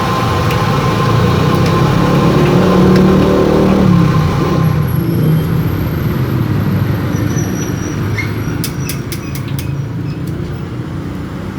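Road traffic: a motor vehicle's engine rumbling past close by, loudest about three to four seconds in and then fading, with a few light clicks near the end.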